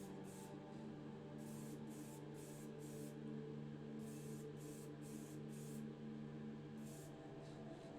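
Gloss varnish being sprayed in a dozen or so short, faint hissing bursts over a steady low hum.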